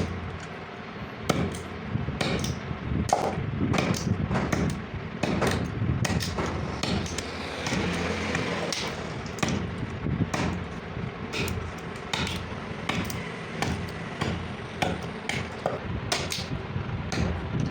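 Irregular hammer strikes, roughly one or two a second, over a steady low hum.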